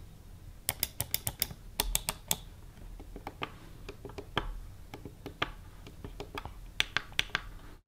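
Logitech MX Master 3 wireless mouse clicking: a quick run of a dozen or so sharp clicks in the first couple of seconds, then scattered single clicks.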